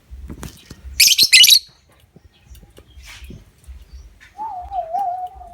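Lovebird giving a short, loud, harsh chattering burst about a second in, followed by faint scattered chirps. Near the end comes a single wavering, whistle-like note lasting about a second.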